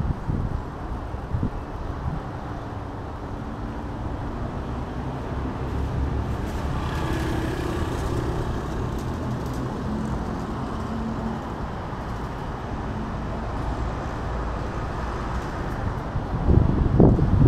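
Street traffic going by, with a vehicle engine humming past in the middle. There are a few low thumps near the end.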